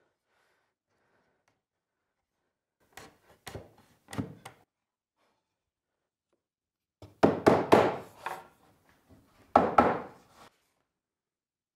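A mallet knocking a wooden shelf-support board down into its half-lap joint in a segmented wooden ring: a few light knocks, then two clusters of louder wooden thunks near the end.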